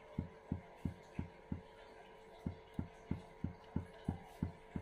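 A soft, low thump repeating about three times a second over a faint steady hum, pausing for under a second about halfway through.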